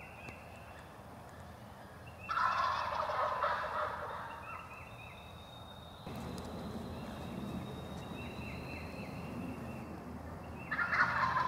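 A wild turkey gobbler gobbles, once about two seconds in and again near the end, each gobble a loud rattling call of a second or two.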